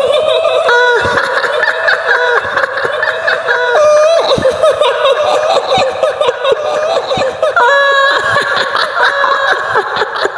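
High-pitched woman's laughter in long, wavering notes that step up and down in pitch: a kuntilanak ghost's laugh as staged for horror sound clips.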